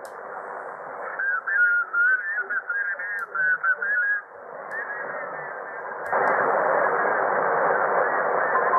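Audio from the Icom IC-R71E shortwave receiver tuned to 7.150 MHz, passed through the bhi NEIM1031 DSP noise canceller and cut off above about 2 kHz. A garbled, wavering voice comes through for a few seconds. About six seconds in, the band hiss suddenly gets much louder and holds, with a few small clicks.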